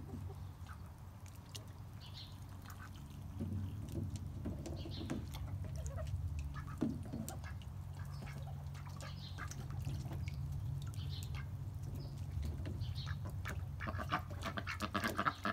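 White domestic ducks dabbling and splashing in a shallow tray of water, with soft quacks scattered through and a burst of quacking near the end. A steady low hum runs underneath.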